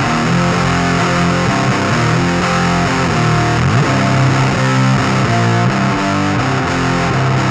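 Epiphone SG in drop C on the bridge pickup playing a heavy distorted riff through a vintage Sunn Beta Lead amp. The Kuro Custom Audio Exegol (a Sunn Model T-style preamp pedal) is switched into the chain partway through and then out again, for an A/B comparison of the tone.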